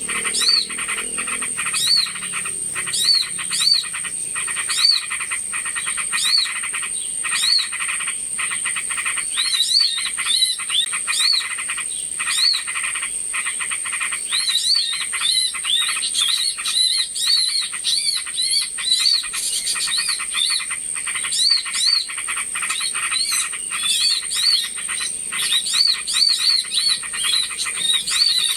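Bird-lure recording of small birds calling busily: short arching call notes repeated over and over amid rapid chattering clicks, against a steady high-pitched whine. The calls grow denser about halfway through.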